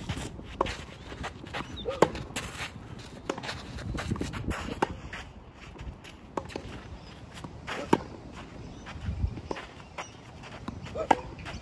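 Tennis ball struck by a racquet: a few sharp pops several seconds apart, the loudest about 2, 8 and 11 seconds in. Between the strikes, tennis shoes scuff and slide on the clay court.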